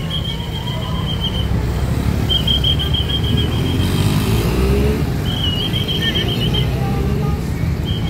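Hino RM280 coach's diesel engine running as the bus pulls through, rising briefly about halfway. A high electronic beep over a second long repeats about every three seconds, typical of a bus manoeuvring alarm.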